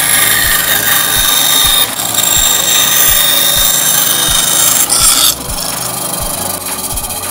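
Bandsaw cutting wood: a loud, steady high hiss that stops about five seconds in. Background music with a steady beat runs underneath.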